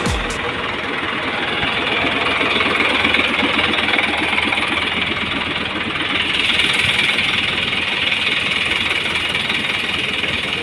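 A construction vehicle's engine running steadily with a rapid even pulse, getting somewhat louder and brighter about six seconds in.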